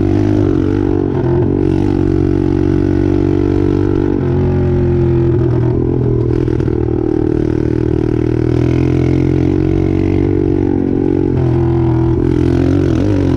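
Apollo 125cc dirt bike's single-cylinder four-stroke engine running while being ridden. The engine note holds fairly steady, with its pitch shifting with the throttle about four seconds in and again near the end.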